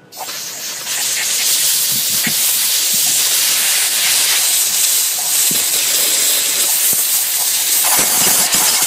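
Compressed-air blow gun blasting into a cylinder head's combustion chamber, a loud continuous hiss, blowing out grit left from cleaning the head-gasket surface.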